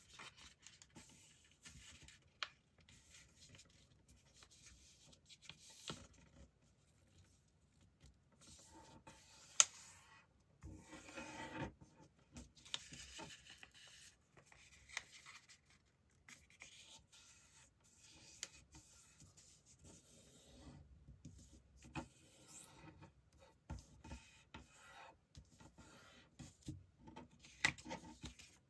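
A sheet of A4 paper being folded by hand on a wooden tabletop: intermittent rustling and fingers rubbing along the folds to crease them, with a few sharp ticks, the loudest about ten seconds in.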